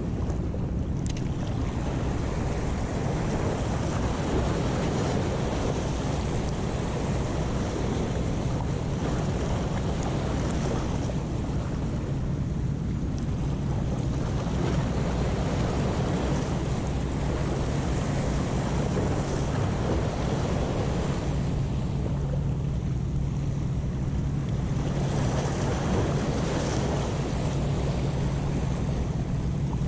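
Sea waves washing against breakwater rocks, the surf swelling and easing every few seconds, under steady wind buffeting the microphone, with a steady low hum underneath.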